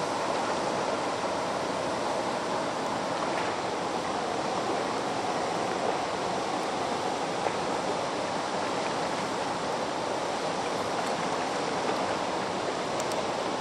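Steady rush of river water pouring through a dam, an even unbroken roar.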